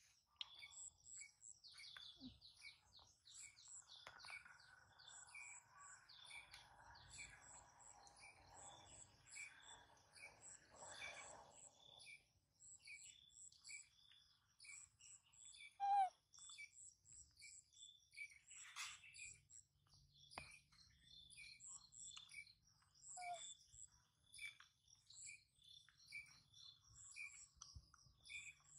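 Faint outdoor chirping of birds and insects, many short high chirps repeating steadily. A single brief squeak, falling in pitch, about halfway through is the loudest sound.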